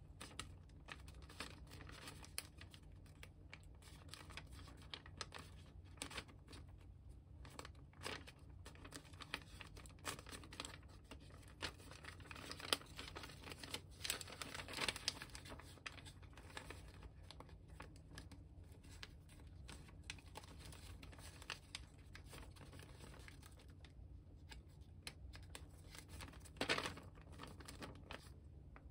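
Origami paper being folded and creased by hand: irregular crinkling and rustling with short crisp crackles. The loudest crackles come around the middle and once more near the end.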